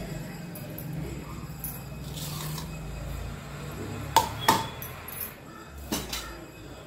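Kitchen containers clinking sharply as they are picked up and set down on the counter: two clinks about four seconds in and two more about six seconds in, over a low steady hum.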